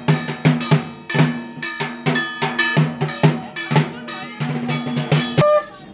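A drum and a struck metal percussion instrument beaten together in a fast rhythm with a ringing, clanging edge, cutting off about five and a half seconds in.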